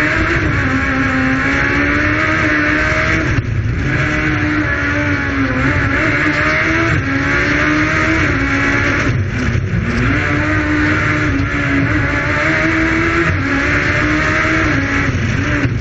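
Suzuki Hayabusa inline-four motorcycle engine in an A112-based slalom prototype, heard from on board, running hard at high revs. Its note rises and falls a little and breaks off briefly about three and a half seconds in, twice around nine to ten seconds, and just before the end.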